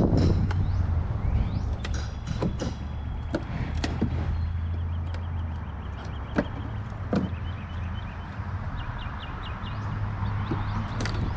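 Wooden wall framing being torn down: scattered cracks and knocks, with a run of quick clicks near the end, over a low steady hum.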